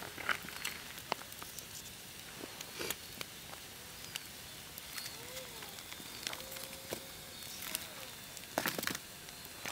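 Campfire crackling: irregular sharp snaps and pops of burning wood, with a louder cluster of pops near the end.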